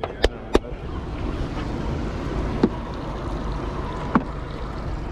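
Three quick hand claps, then a steady wash of water and wind around a small boat, with two light knocks later on.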